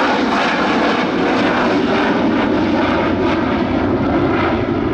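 Avro Vulcan XH558's four Rolls-Royce Olympus turbojets running steadily and loudly as the bomber flies past with its bomb bay open.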